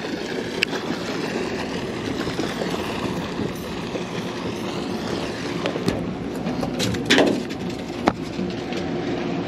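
Steady rumble of a sportfishing boat's engine, broken by a few sharp knocks. The loudest knock comes about seven seconds in.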